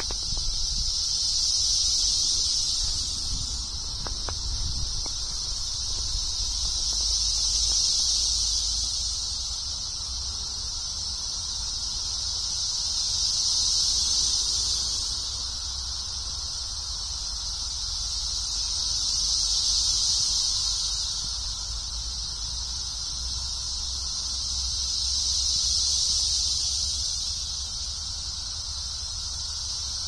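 Dense chorus of periodical cicadas: a loud, high-pitched drone that swells and fades in slow waves about every six seconds.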